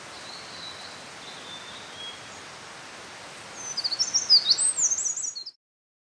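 Eurasian wren singing its territorial song: a loud, fast run of high chirps and trills starting about three and a half seconds in and cut off abruptly. Under it, the steady rush of a mountain stream.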